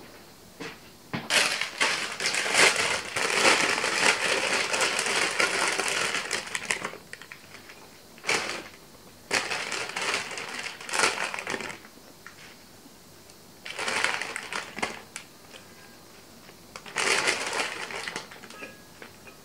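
Crisp rustling and crackling of fresh mixed salad leaves being handled and dropped into a ceramic bowl: a long stretch of about five seconds, then four shorter bursts with quiet gaps.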